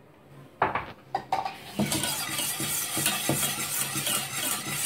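Wire balloon whisk beating a thin milk-and-flour white sauce in a stainless steel pot. A couple of sharp knocks come about half a second and a second in, then a steady run of rapid metal clinking and scraping as the whisk wires rattle against the pot.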